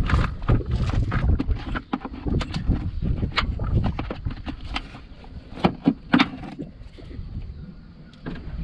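Irregular metallic clinks and knocks of a spanner and other hand tools being handled in a car's front wheel arch, over low rumbling handling noise. It is busiest and loudest in the first few seconds, with two sharper knocks past the middle.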